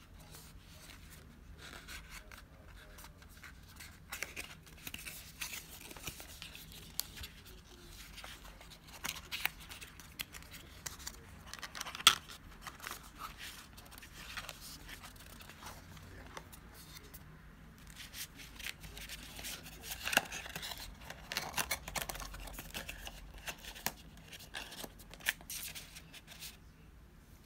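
Cardboard perfume box being handled and opened: scraping and rustling of the card and its folding insert, with many small clicks and taps. A single sharp click about halfway through is the loudest sound.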